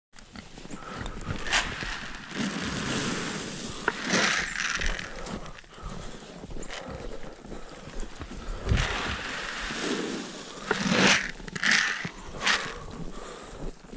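Pigs grunting and squealing, with several short, loud squeals about four seconds in and again near the end, over a steady rustle of movement.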